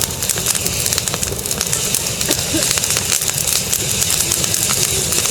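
Large wood bonfire burning fiercely: a steady rushing noise with many irregular sharp crackles and pops.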